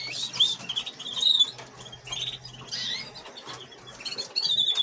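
Canary nestlings giving high, thin begging chirps in short bursts, several times over, while being hand-fed from a syringe.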